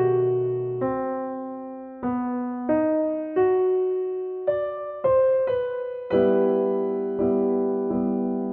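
Background music on a solo piano: slow single notes, each struck and left to fade, then a fuller chord repeated about once a second from about six seconds in.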